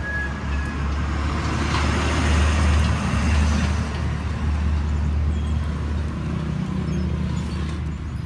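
Steady low outdoor rumble that swells for a second or so around two to three seconds in, with a light hiss over it.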